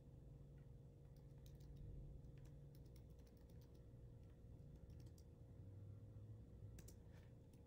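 Faint, irregular keystrokes on a computer keyboard over a low, steady hum.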